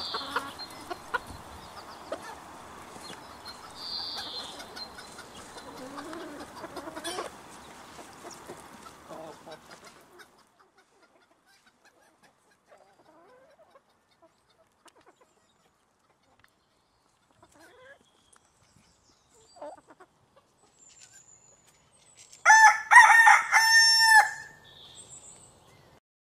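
Farmyard animal sound effects: a low background with faint fowl calls for the first ten seconds, then near silence, then a loud rooster crow about 22 seconds in, lasting about two seconds.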